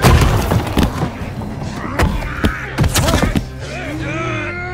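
Fight-scene sound effects: about five heavy punches and body thuds land in the first three and a half seconds, over a dramatic film score.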